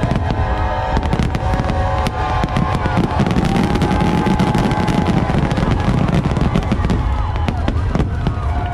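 Aerial fireworks going off in a rapid barrage, many bangs and crackles close together, over the show's soundtrack music with held notes.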